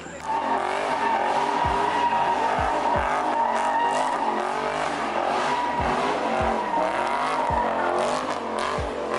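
Car tyres squealing in one long, steady screech as a car slides through a drift; it starts just after the beginning and dies away near the end.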